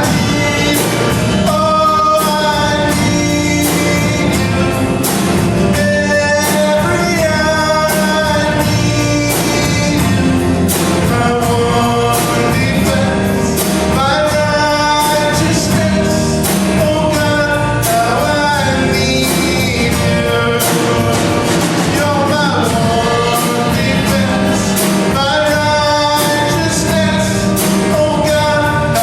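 A song with a sung melody over a band with a steady beat, typical of worship music.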